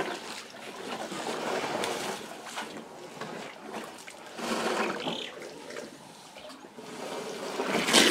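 African elephants drinking at a muddy waterhole: water trickling and splashing in several swells as they work it with their trunks, with a sharp, loud splash near the end as one sprays water from its trunk.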